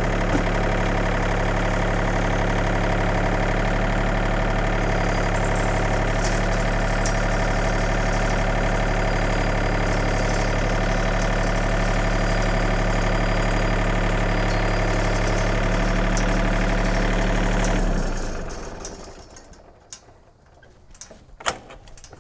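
John Deere 2032R compact tractor's three-cylinder diesel engine running at a steady speed while its front loader raises a heavy roll of wire. It is shut off about 18 seconds in and runs down, leaving a few light clicks near the end.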